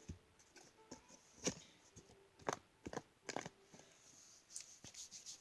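Homemade contact-solution slime being squished and pulled by hand, giving faint, irregular sticky clicks and pops.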